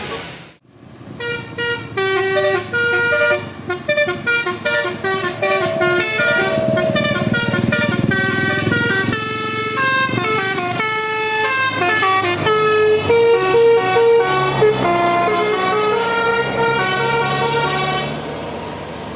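A bus's telolet horn, a multi-tone musical air horn, playing a long, fast melody of short stepped notes. It starts about a second in and stops shortly before the end.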